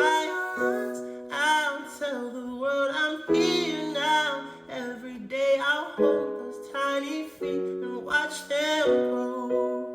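Background music: a song with plucked-string accompaniment in ukulele style and a singing voice in several short phrases.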